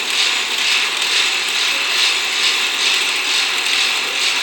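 Flux-cored arc welding with E71T-1 tubular wire, building up the worn inner bore of a stone-crusher screen's bearing housing. The arc makes a steady noise with a faint regular pulsing.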